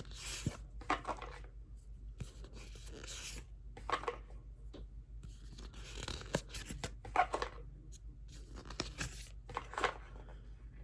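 Cards of an oracle deck being handled and flipped through one at a time: short papery swishes and flicks of card stock, about one a second, over a low steady hum.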